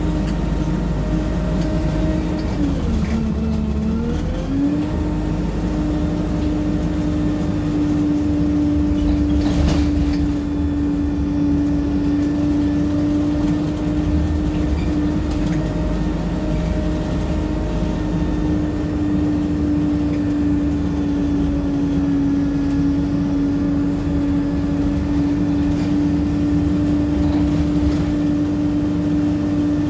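Interior sound of a Wright StreetLite single-decker bus on the move: a steady running whine over a low rumble. The whine drops in pitch about three seconds in and climbs back a second or so later. There is one sharp knock about ten seconds in.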